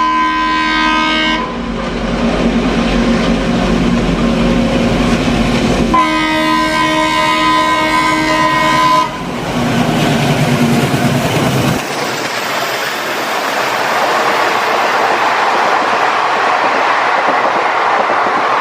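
A diesel locomotive passing and sounding its multi-tone horn in two blasts, one ending about a second in and the next from about six to nine seconds, over the engine's rumble. After that comes the steady rush and clatter of the train's coaches running past on the rails.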